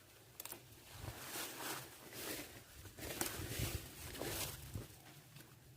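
Irregular rustling and crunching of leaves and undergrowth, in short bursts about once or twice a second, as someone moves through the vegetation gathering cassava leaves.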